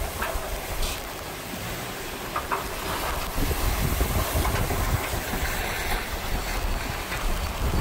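Gusty wind in the tail of Hurricane Idalia, rumbling and buffeting against the microphone in uneven gusts, with a steady rush of wind behind it.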